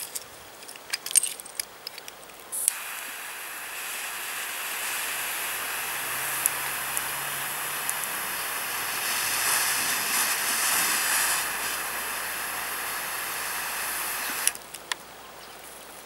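A few clicks of the lighter, then a butane torch lighter's jet flame hissing steadily for about twelve seconds as it lights a cigar, cutting off sharply near the end.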